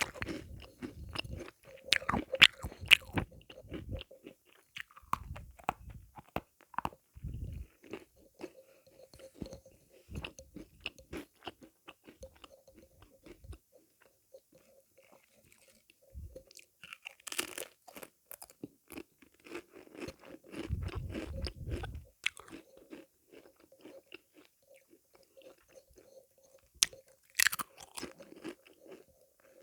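Close-up eating of sweets: crisp crunching bites followed by chewing. The loudest crunches come about two seconds in, around the middle and near the end.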